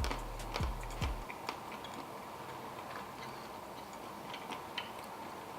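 A few light clicks and taps of tableware being handled in the first second or so, thinning out to faint scattered ticks.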